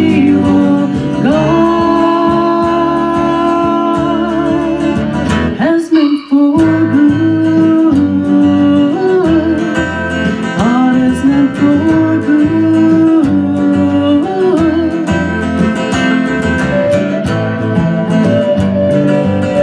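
Acoustic guitar accompaniment under a woman's wordless sung melody of long held notes with vibrato. Later an end-blown flute takes over the melody, with a short break in the music about six seconds in.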